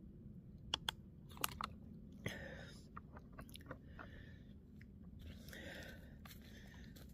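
Faint footsteps crunching on the leaf-littered forest floor, with a few sharp clicks and snaps in the first two seconds and rustling later.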